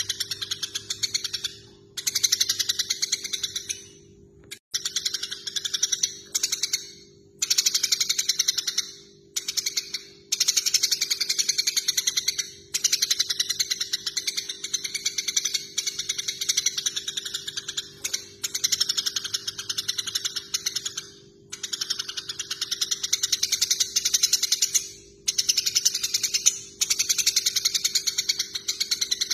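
Eurasian tree sparrows chattering in fast runs of harsh, ratchet-like chirps, the agitated calls of sparrows fighting, broken by brief pauses every few seconds.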